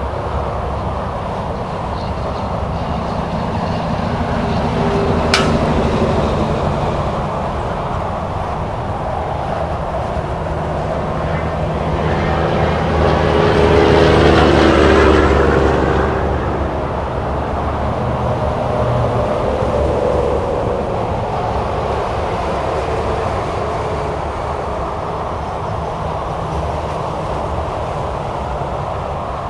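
Highway traffic: cars and semi-trucks passing at speed in a steady wash of tyre and engine noise that swells and fades. One vehicle passes loudest about halfway through, and there is a single sharp click about five seconds in.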